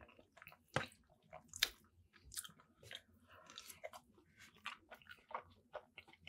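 Close-up chewing of a mouthful of mac and cheese and buffalo chicken: irregular wet mouth clicks and smacks, a few louder ones about a second in.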